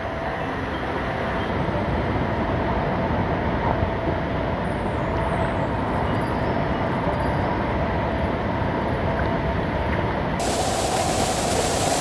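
Waterfall roar: a steady, loud rush of falling water that turns brighter and hissier near the end.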